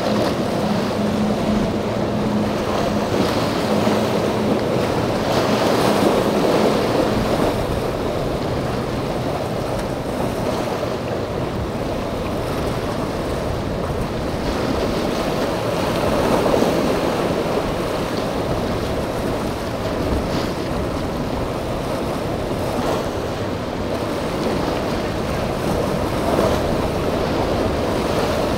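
Rough surf and choppy waves rushing, with wind on the microphone. A boat's engine hums under the water noise for the first several seconds, then fades out.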